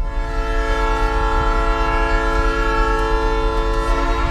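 A locomotive's air horn sounds one long chord-like blast of about four seconds, over the low, steady rumble of the moving train.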